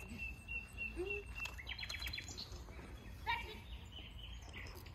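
Small birds chirping and singing: one held high note, then quick high trills, over steady low outdoor background noise.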